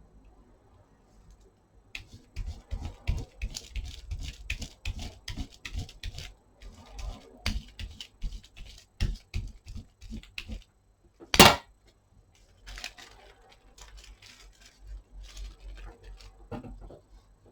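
An irregular run of small clicks and rustles, dense for several seconds and sparser near the end, with one louder crackling burst about eleven seconds in.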